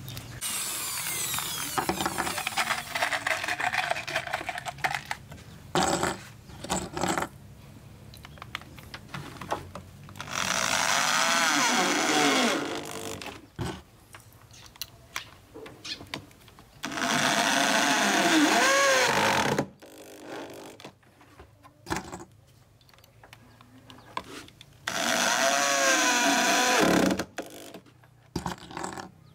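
Cordless drill-driver driving screws through a 15-inch speaker driver's frame into a subwoofer cabinet: four runs of the motor, each a few seconds long, its pitch rising and falling as the screw bites and seats. Short clicks and knocks of handling come between the runs.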